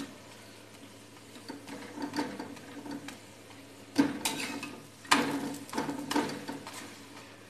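Flat metal spatula working a paratha on a tawa griddle: light scrapes, then two sharp knocks against the pan about four and five seconds in, each followed by more scraping.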